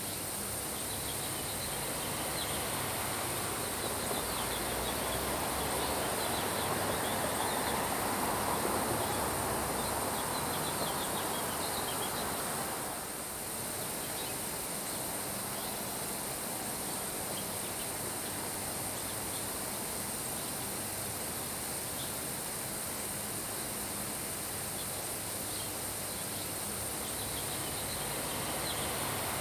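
Steady summer rain shower falling on grass, with wind swelling about six seconds in and easing off again by about twelve seconds.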